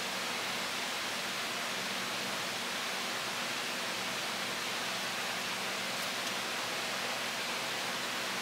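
Steady, even hiss with a faint low hum underneath.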